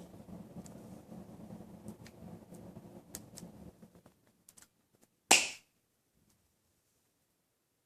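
Dog nail clipper snapping through a nail: one loud, crisp snap about five seconds in, after a few faint clicks and low rustling of handling that stops just before it.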